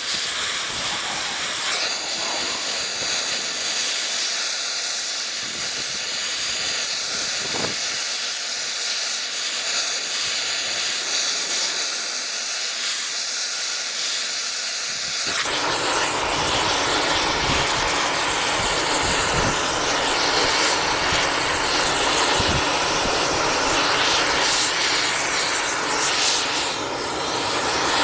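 Oxy-fuel rosebud heating torch burning steadily with a loud hiss as it heats the steel. About halfway through the sound abruptly becomes fuller and deeper.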